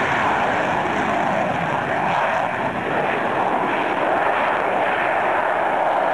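Jet noise from the Sukhoi Su-47 Berkut's twin D-30F6 turbofans as the jet takes off and climbs steeply: a steady, even rushing sound with no break or change in pitch.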